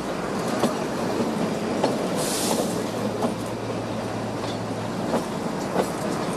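Narrow-gauge passenger coaches running round a curve, heard from the coach: a steady rumble of wheels on rail with irregular clicks over the rail joints. A brief hiss comes about two seconds in.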